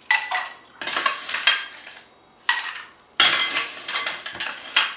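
Ice cubes scooped by hand from a bowl and dropped into a glass of cocktail mix, clattering and clinking in about four bursts.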